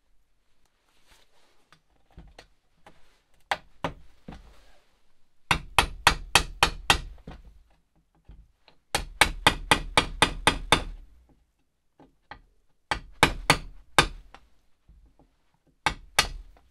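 Small ball-peen hammer tapping in quick runs of about five blows a second, with pauses between, fastening rubber flaps onto a metal radiator fan shroud.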